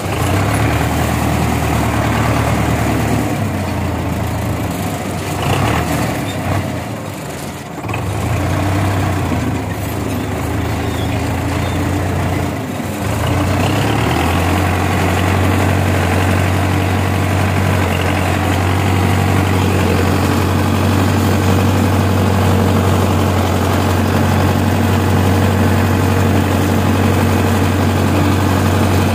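Tractor diesel engine running steadily while pulling a tillage implement through the field, a low steady drone. The note dips briefly twice in the first half, then settles into a steadier, louder drone for the rest.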